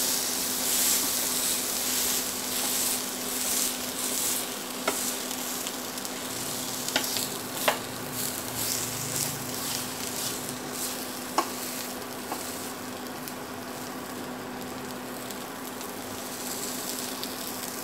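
Butter with ginger and coriander sizzling under a pita bread on a hot nonstick tawa as the bread is turned and pressed with a plastic spatula, with a few sharp clicks of the spatula against the pan. The sizzling slowly dies down, over a steady low hum.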